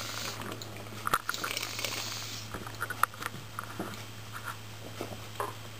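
Gulping and swallowing as cola is chugged from cans, with a few sharp clicks over a low steady hum.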